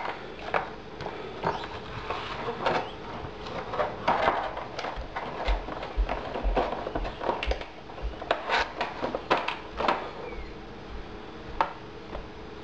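Irregular clicks, taps and light knocks of small hard objects being handled close to the microphone, with a few dull low thumps midway.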